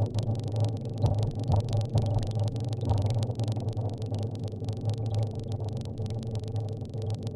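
Car engine and road noise heard from inside the cabin while driving: a steady low drone, with a few short thumps between one and three seconds in.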